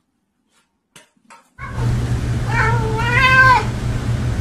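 A fluffy orange cat gives one long, drawn-out meow of about a second, its pitch rising slightly, holding, then dropping as it ends. The meow sits over a steady low hum that comes in about a second and a half in.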